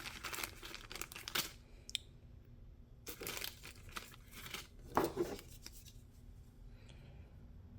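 Rustling and crinkling in a few short spells, with light clicks, as a new .156 Molex crimp pin is picked out and handled.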